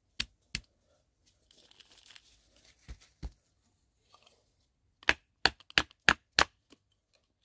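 A knife being batoned through a stick of dry wood to split kindling: sharp knocks on the blade's spine, two near the start, two about three seconds in, then a quick run of about six. Between the knocks comes a dry splitting, tearing sound of the wood giving way.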